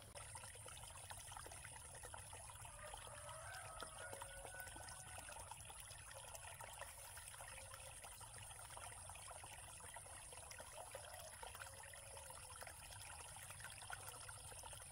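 Faint, steady trickle of flowing water, with many tiny crackles.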